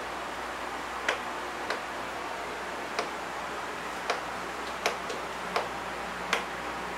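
Cats' claws clicking and tapping on a hardwood floor during a play fight: about eight sharp, irregularly spaced clicks over a steady background hiss.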